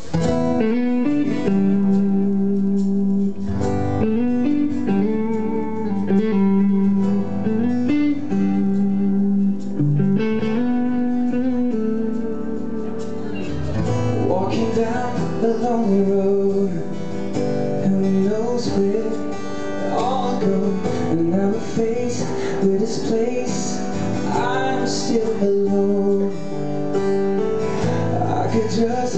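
Live band playing a slow pop song: acoustic guitar playing steady chords, joined about halfway through by a man singing into a microphone.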